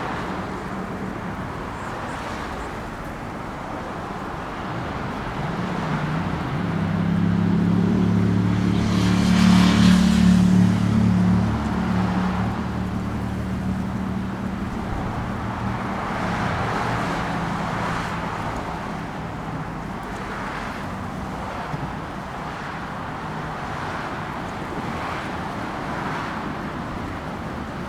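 Road traffic going by, with one vehicle's engine passing close: a low engine hum builds, is loudest about ten seconds in, then fades.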